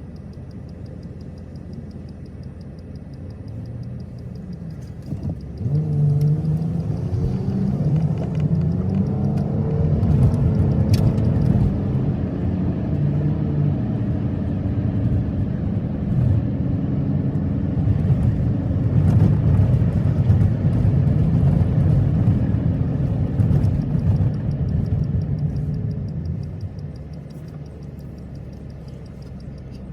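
Car driving: engine and road rumble that picks up about five seconds in, holds, and eases off near the end.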